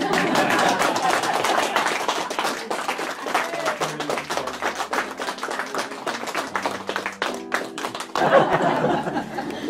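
A small group clapping, with voices mixed in. The clapping thins out after about seven seconds and talk takes over near the end.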